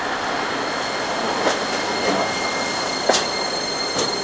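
Iyotetsu 2100-series low-floor city tram pulling in to a stop, running slowly on street track with a thin steady high whine and three sharp wheel clacks on the rails, the loudest about three seconds in.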